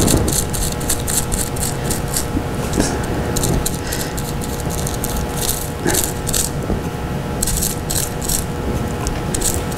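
A paintbrush scrubbing and dabbing acrylic paint into bubble wrap: quick, irregular scratchy strokes of bristles and plastic, several a second.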